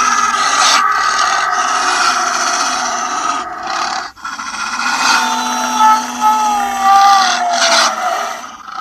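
Wolves howling. A rough, noisy stretch is followed, after a short break about four seconds in, by long howls that glide slowly downward, two voices at once.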